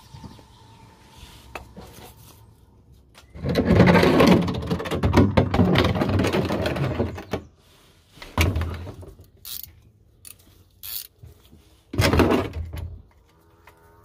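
Clattering and scraping of metal tools being handled under a car, a dense run of it lasting about four seconds from about three seconds in, then several short separate knocks and clanks.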